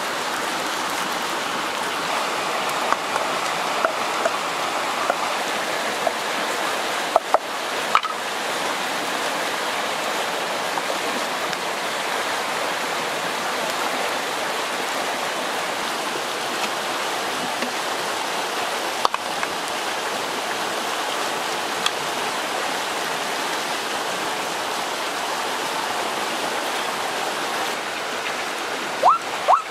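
Shallow stream rushing over rocks, a steady wash of water, with a few short sharp clicks.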